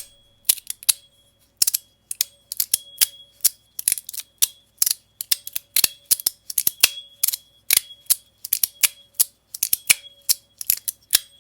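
Armor tuning fork fidget slider by JuzhEDC being slid back and forth: rapid, irregular sharp metal clicks, several a second, with its tuning fork ringing a steady high tone and a lower one between the clicks.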